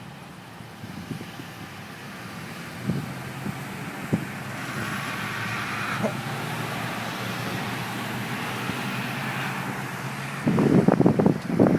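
A vehicle engine running steadily, with a few short knocks, then a loud low rumbling burst near the end.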